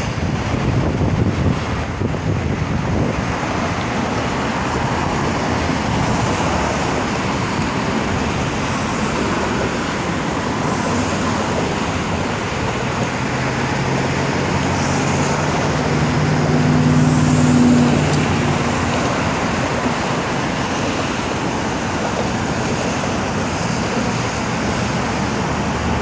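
Steady road traffic noise, with a low engine hum that builds as a vehicle passes close by, loudest about two-thirds of the way through.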